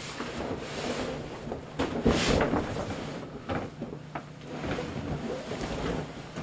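Plastic raincoat rustling and an inflated vinyl pool being handled, its walls rubbing and knocking, with the loudest thump about two seconds in.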